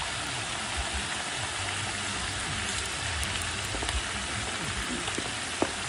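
Hot oil sizzling and bubbling hard around a whole turkey being lowered into a propane turkey-fryer pot: a steady, even sizzle. The pot is filled high, and the oil is foaming up toward the rim.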